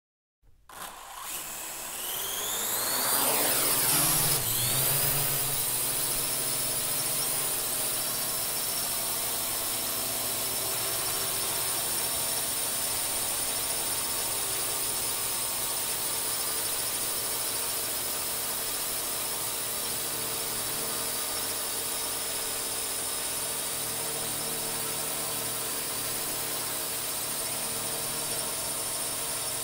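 Quadcopter drone's motors and propellers spinning up with a rising whine as it lifts off, then settling into a steady high-pitched whine as it flies.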